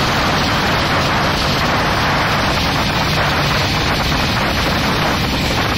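Thames Clipper catamaran ferry under way: a steady rush of engine and water noise, with wind blowing across the microphone.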